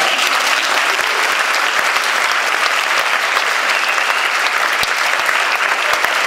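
Theatre audience applauding steadily: dense hand-clapping with no letup.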